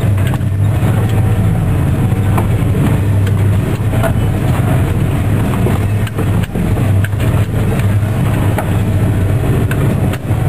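A 4x4 truck's engine running steadily as it drives over a rough off-road trail, with frequent short knocks and rattles from the bumps.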